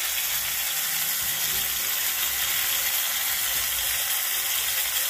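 Chopped onions and green chillies sizzling in hot oil in a frying pan, a steady hiss as they sauté.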